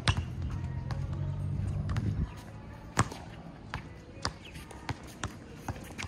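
Basketball being dribbled and bounced on a hard outdoor court, in irregular sharp knocks, the loudest about three seconds in. A low hum sits under the first two seconds.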